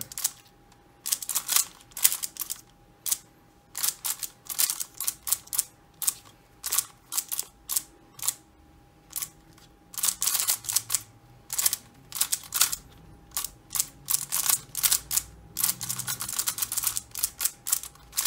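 Xiaomi Giiker i3 smart cube turned fast in a speedsolve: rapid plastic clicking of the layers at roughly four turns a second, in quick bursts with short pauses between them.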